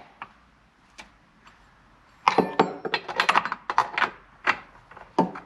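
Hand work on a chainsaw's bar and chain: a few separate clicks, then from a little over two seconds in a quick run of short metallic clinks and clanks as the chain is tensioned and the bar fitted.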